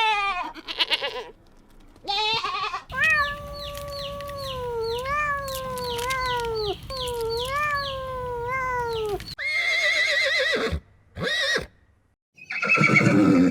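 A run of separate animal calls, several of them bleat-like cries with wavering pitch, with a long stretch of falling-and-rising calls and quick repeated chirps in the middle.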